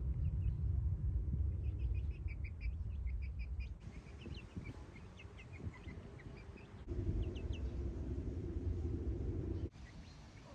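Birds chirping in short, high-pitched calls, a quick run of them about two seconds in and scattered chirps after, over a low rumble that fades at about four seconds and comes back near seven.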